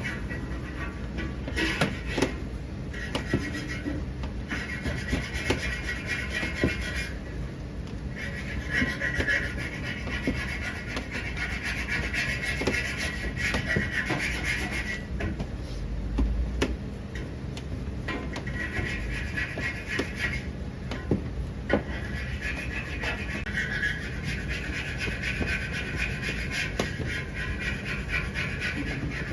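Small wooden rolling pin worked rapidly back and forth over dough on a wooden board, rolling out xiaolongbao wrappers: a dense rubbing clatter in stretches of a few seconds with short breaks, scattered with sharp clicks.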